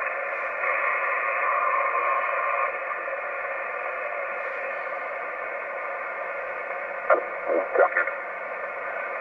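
Ham radio receiver's speaker hissing with narrow-band static on an open frequency, with a few brief chirps about seven to eight seconds in.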